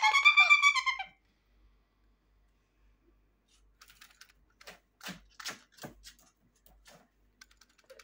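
Blue-fronted Amazon parrot giving a loud squawk that rises and falls in pitch and breaks off about a second in. Later comes a scattered run of sharp clicks and taps between about four and seven and a half seconds in.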